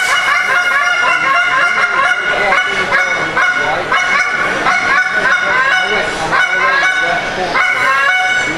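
A mouth-blown goose call worked in a fast, unbroken run of honks and clucks, many notes breaking sharply upward in pitch, imitating Canada geese.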